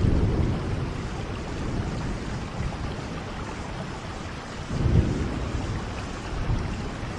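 Steady heavy rain with low rumbles of thunder, one at the start and another about five seconds in.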